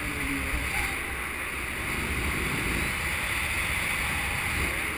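Steady wind noise on an action camera's microphone from the airflow of paraglider flight: a low buffeting rumble with a hiss above it.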